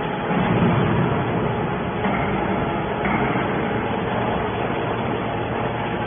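Hydraulic scrap metal baler running, a steady mechanical hum and hiss with faint steady tones under it.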